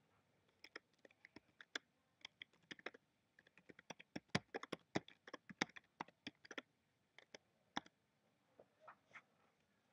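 Faint keyboard typing: quick, irregular clicks in runs, densest in the middle, then stopping briefly before a few last taps near the end.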